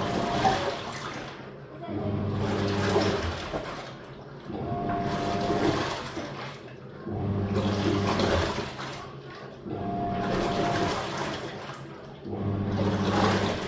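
Living & Co 5.5 kg top-loading washing machine agitating in its wash cycle. The motor hums in short spells about every two and a half seconds, with water sloshing in the tub in between.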